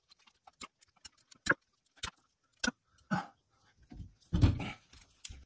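Scattered light metal clicks and a few duller knocks as the jointer's cutterhead guard and its screws are handled and fitted back on. The loudest is a dull knock about four and a half seconds in.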